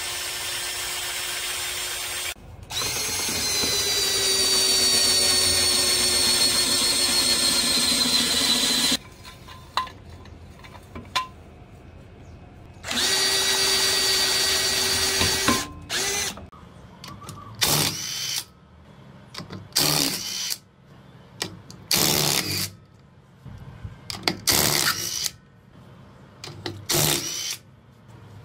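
Power drill turning a scissor jack's screw in long steady runs, its pitch sagging slightly as it takes the car's weight. From about halfway on it runs in a string of short bursts.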